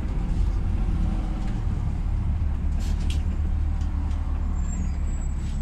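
Cabin sound inside a LiAZ 5292.67 city bus: a steady low drone from its YaMZ-53624 compressed-natural-gas engine and drivetrain, with a couple of light rattles about three seconds in.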